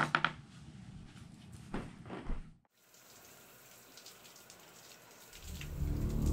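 A few sharp knocks and clicks, then the sound cuts out to a faint hiss; about five seconds in, a low droning film score swells up.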